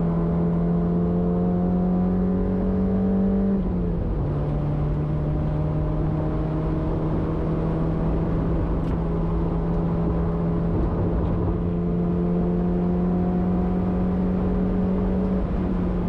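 Mazda MX-5 Eunos four-cylinder engine pulling hard under acceleration, its pitch climbing slowly. A gear change drops the pitch about three and a half seconds in, then it climbs again through a long pull and eases slightly near the end.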